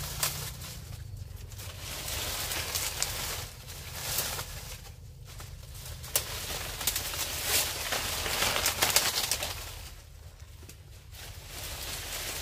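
Rustling and crackling of dry fronds and stems, with scraping in wet mud, as a man digs by hand into a crab burrow. It is loudest in the middle stretch and dies down near the end.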